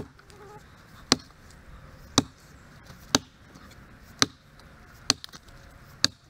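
Axe chopping into a log: seven sharp blows, about one a second.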